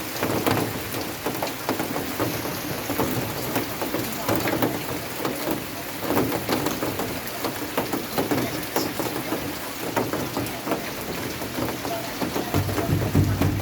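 Rain falling steadily, with many drops pattering and splashing on a hard surface. A low rumble rises near the end.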